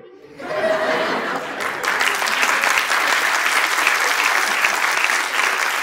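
Audience applauding: the clapping starts a moment in, thickens over the first couple of seconds into a steady, dense clatter of many hands, and carries on to the end.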